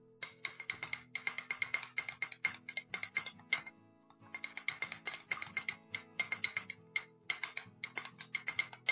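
Quick stirring of rose water in a small container: the utensil clinks against its sides several times a second, with a short break about halfway through. Soft background music plays underneath.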